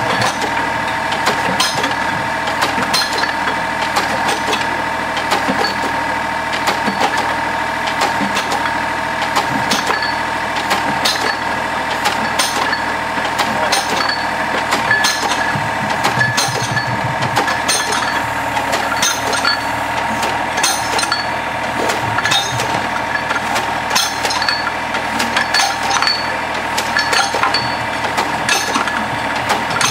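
Nordmeyer Geotool GTB-2000 cable percussive drilling rig running, a steady whine from its power unit and hydraulics, with short metallic knocks about once a second as the rig's percussion mechanism works the drilling tool.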